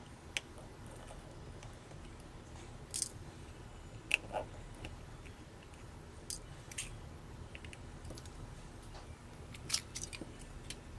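Small plastic and metal parts of a Nikon Coolpix AW110 clicking and tapping as the camera's rear plate and screen assembly are pried up and lifted out by hand. About a dozen scattered short clicks and light taps, clustered about three to four seconds in and again near the end.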